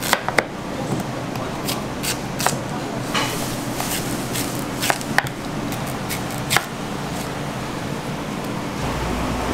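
Kitchen knife slicing through a large Korean radish and knocking on a plastic cutting board: a series of sharp knocks at irregular intervals over a steady kitchen background hum. The knocks stop about two-thirds of the way through.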